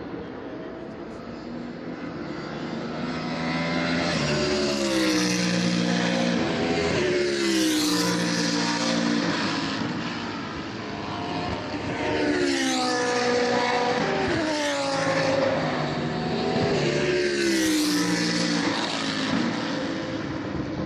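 GT3 race cars passing at speed one after another, about five in turn. Each engine note drops in pitch as the car goes by.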